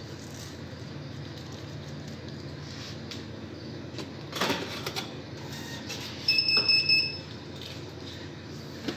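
A high electronic beep lasting about a second, two-thirds of the way in, over a steady low hum, with a few soft clicks and rustles of hands working shortly before it.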